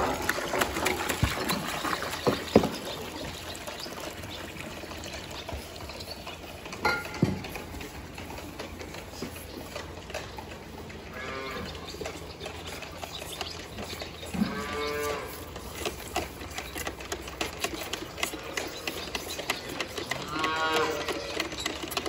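Calves mooing, with short calls about eleven, fifteen and twenty seconds in. Several sharp knocks come in the first few seconds, and another about seven seconds in.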